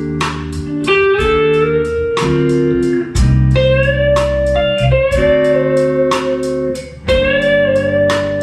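Instrumental music: a guitar melody with gently sliding notes over held chords and a steady beat.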